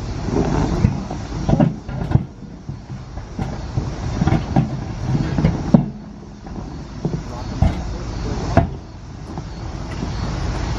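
Irregular metallic clanks and knocks of tools and wheel hardware being handled during a monster truck wheel change, over a low steady rumble. The sharpest knocks come about two seconds in, near the middle, and past three-quarters of the way.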